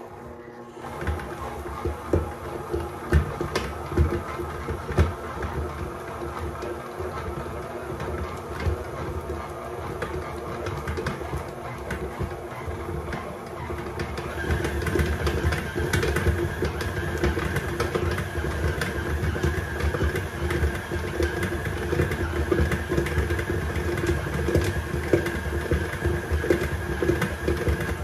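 KitchenAid tilt-head stand mixer running, its beater churning chocolate ice cream in a chilled stainless steel bowl, with a steady motor hum and irregular knocks. About halfway through, a higher whine joins and the sound gets a little louder.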